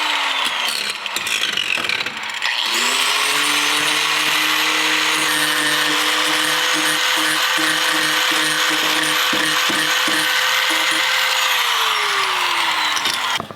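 Electric angle grinder with a 50-grit sanding pad sanding a plastic water tank. It is winding down at first, starts again about three seconds in and runs at a steady whine with scraping bursts against the plastic, then winds down and stops near the end.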